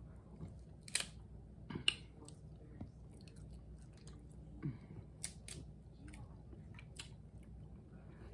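Snow crab leg shells cracked and snapped apart by hand, giving a handful of sharp clicks spread through, with close-up chewing between them.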